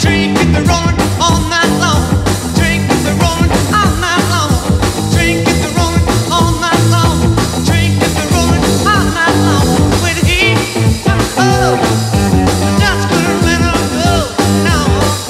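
1960s rock band playing an instrumental break: a lead line full of bending, sliding notes over a driving drum beat and bass.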